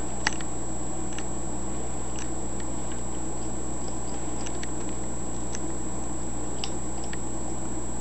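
Congo African grey parrot picking at a banana and its peel on a counter: scattered soft clicks and taps, over a steady low hum.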